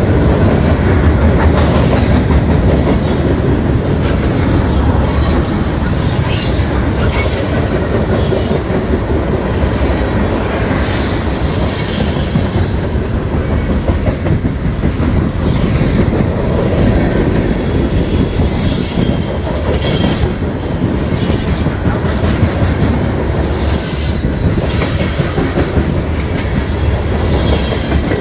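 Freight cars of a long mixed freight train (gondolas, autoracks, covered hoppers) rolling past close by. The wheels make a steady loud rumble on the rails, with clickety-clack over the joints and short high-pitched wheel squeals that come back every second or two.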